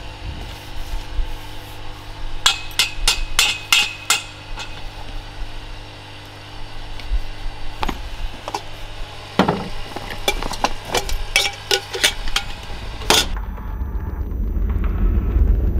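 Camping gear being handled: two bursts of sharp clicks and knocks, the first a few seconds in and the second in the latter half. About thirteen seconds in they give way to a steady rush of wind on the microphone.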